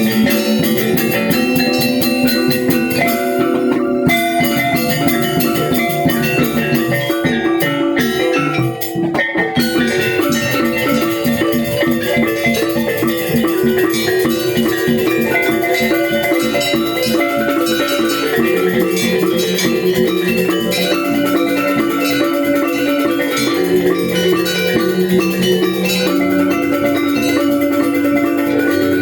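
Balinese gamelan angklung ensemble playing a tabuh kreasi: bronze metallophones struck in fast, dense interlocking patterns over drums. The music drops briefly about nine seconds in, then carries on.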